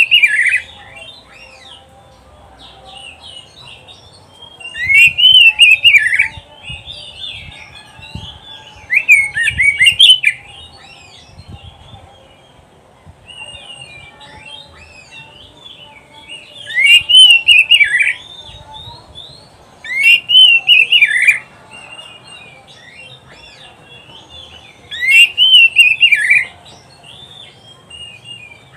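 Oriental magpie-robin (kacer) singing: loud, scratchy song phrases about a second long come every few seconds, with quieter twittering notes in between.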